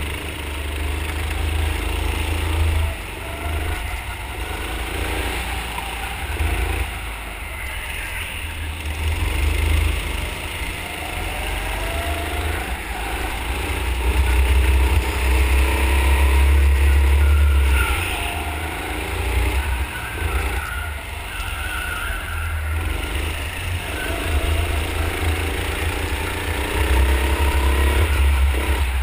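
Rental go-kart's 9 HP single-cylinder engine heard from onboard, revving up and down as the kart laps the track, its pitch rising on the straights and dropping into corners. A heavy low rumble runs under it.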